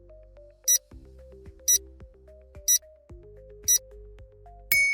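Countdown timer effect ticking once a second over soft background music, ending in a bright chime with a short ring-out about four and a half seconds in.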